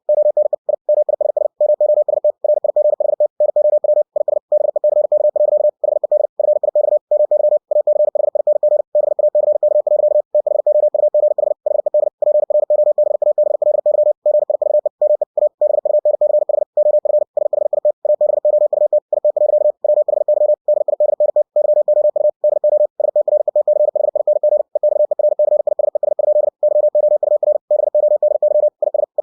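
Computer-generated Morse code (CW) sent at 60 words per minute: a single mid-pitched beep keyed on and off in very fast dots and dashes, with short breaks between words.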